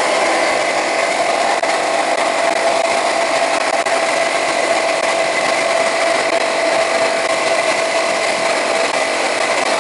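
Wet blast cabinet blasting a carbon-blackened motorcycle piston: a steady, loud rush of spray noise with a constant whine running through it.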